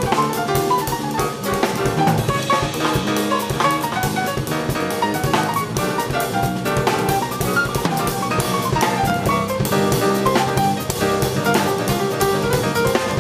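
Live jazz from a piano trio: grand piano playing quick runs of notes over a busy drum kit. A run of notes falls in pitch about eight seconds in.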